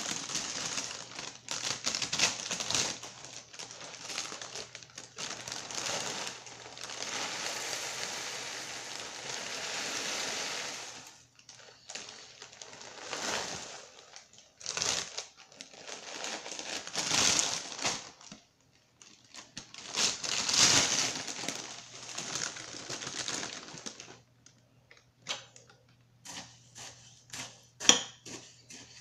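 Clear plastic cereal bag of Fruity Pebbles being handled, crinkling and rustling with the cereal shifting inside, in a long stretch at first and then in shorter separate bursts. Near the end a quick run of short, crisp clicks.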